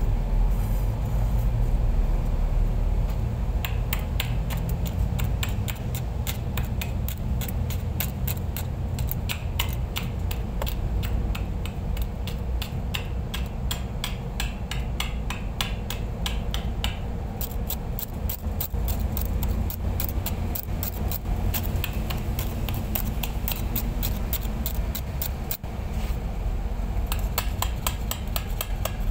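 Stick-welding arc crackling and popping irregularly at a steel pipe joint, over a steady low engine drone.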